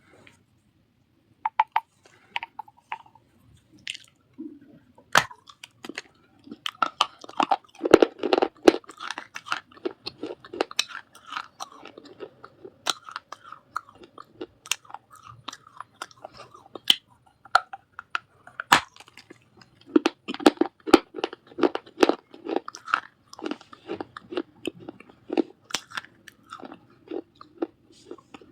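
Pieces of a baked clay surahi (earthen water pot) being bitten and chewed close to the microphone: irregular sharp cracks and crunches, a few scattered at first, then dense and continuous from about six seconds in.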